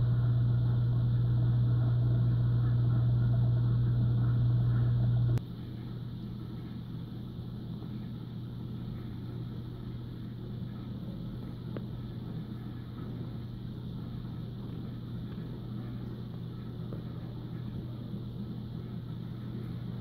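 Steady electric hum of reef-aquarium equipment such as the pumps, loud for about the first five seconds and then dropping suddenly to a quieter hum that carries on.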